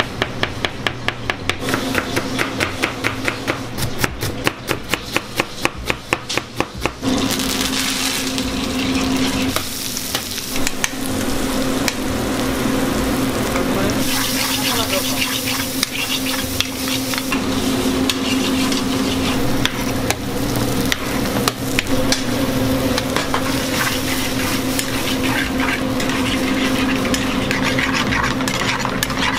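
A knife chopping quickly on a plastic cutting board, about four strokes a second. About seven seconds in it gives way to sliced onions sizzling as they fry in a steel pan and are stirred with a metal spoon, over a steady low hum.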